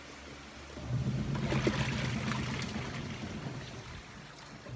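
Water running and splashing in the laundry area, over a steady low hum that starts about a second in.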